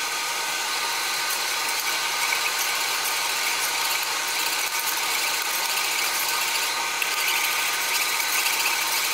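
A steady mechanical whirr, level and unchanging, heard while a wire whisk stirs thickening milk pudding in a metal saucepan.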